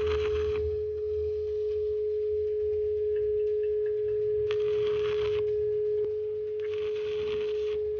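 Stick welding on thin steel tubing: three short bursts of arc crackle, each about a second long, at the start, midway and near the end, as short welds are laid. Throughout, a steady high hum is the loudest thing heard.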